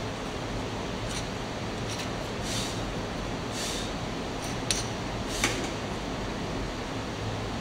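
A metal moulder's spoon scraping lightly through moulding sand, then two sharp clicks a little under a second apart, over a steady hiss.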